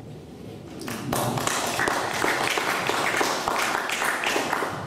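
Audience applauding: many hands clapping, starting about a second in and stopping right at the end.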